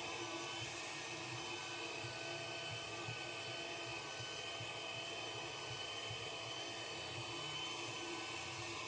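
Hutt DDC55 window-cleaning robot running on the glass, its suction fan giving a steady whine of several tones over a hiss as it wipes with damp cloth pads.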